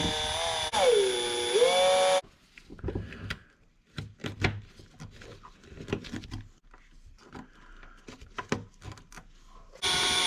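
A cordless electric screwdriver runs for about two seconds, its whine dipping in pitch and coming back, then stops. Small clicks and taps of parts being handled follow, and the screwdriver starts again near the end.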